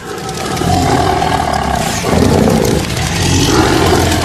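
Tiger roaring, a sound effect laid over an animated intro, swelling up over the first second and staying loud.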